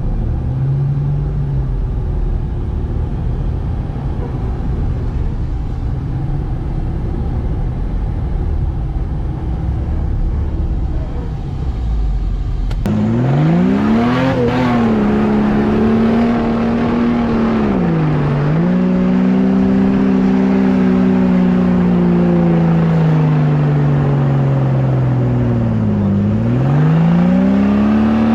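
Jeep engine under load climbing a sand hill: a low rumble at first, then, after a sudden change about halfway through, revving up and down with its pitch rising and falling several times.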